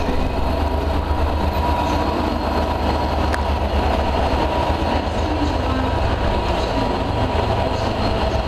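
Diesel freight locomotive passing at speed with a train of hopper wagons: a steady low engine drone, then the wagons rolling past with wheel clatter and a thin steady whine. There is one sharp click about three seconds in.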